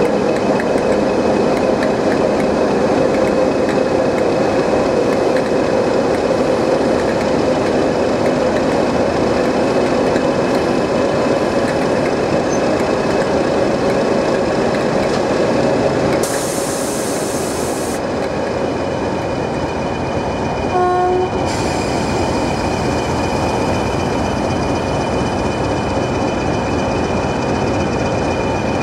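Class 20 diesel locomotive D8059's English Electric 8SVT engine idling steadily at close range. About halfway through, the sound cuts to diesel locomotives idling further off, with a brief horn toot a few seconds later.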